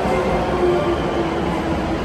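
A 521 series electric multiple unit running in along a station platform: steady rumble of wheels and running gear, with a faint tone that drifts slightly lower.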